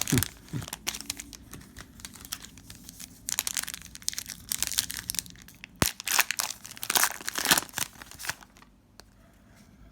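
Foil trading-card pack wrapper being torn open and crinkled by hand, with the cards shuffled about, in irregular spells of rustling. A single sharp click comes about six seconds in, and the handling dies down near the end.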